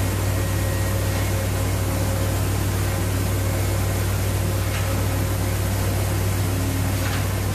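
Steady machinery hum on board a pipelay vessel: a deep, constant drone with an even ventilation-like hiss and a couple of faint steady tones.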